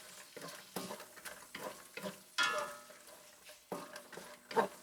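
Sugar snap peas and diced chicken being stir-fried in a pan: irregular scraping strokes of the spatula against the pan over a light sizzle.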